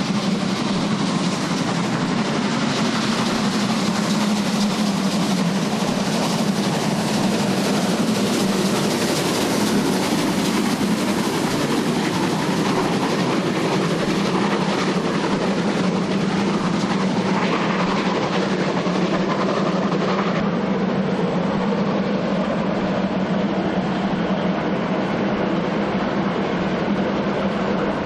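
Heavy freight train of hopper wagons hauled by steam locomotives working hard under load: a steady, loud noise of the locomotives' exhaust with the wagons rolling and clattering over the rails.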